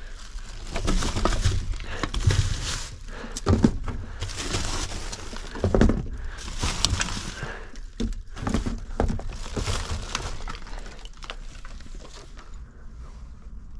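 Rummaging through dumpster contents: packaging rustling and crinkling, with repeated knocks and thuds as items are moved and dropped. The handling quietens near the end.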